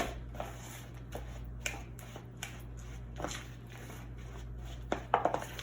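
Spoon stirring a sticky mixture of seeds and honey in a bowl: scattered soft scrapes and clicks every second or so, over a steady low hum.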